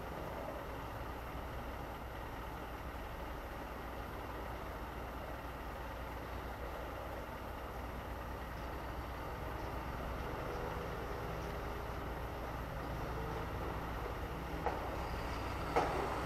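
Steady low rumble of box-truck engines running in a loading lot, growing a little louder near the end as a truck pulls in. Two short sharp bangs sound near the end.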